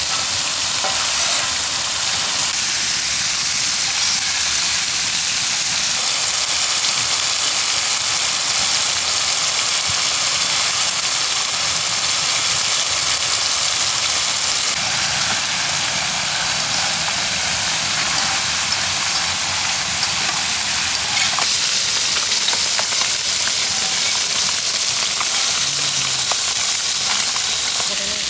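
Marinated snakehead murrel fish slices frying in sesame oil on a wide flat pan: a steady, loud sizzle, with light scrapes of the utensils as pieces are turned.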